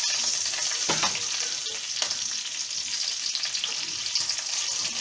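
Masala-stuffed red chillies sizzling steadily in hot mustard oil in a kadai, with a couple of soft knocks as chillies are set into the pan.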